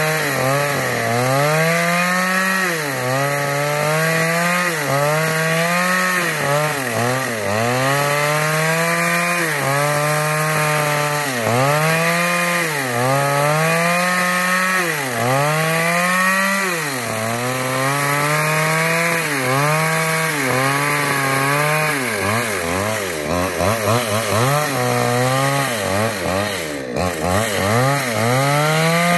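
Chainsaw cutting into wood under load. Its engine note sags as the chain bites and picks back up, over and over every second or two, with quicker wavering near the end.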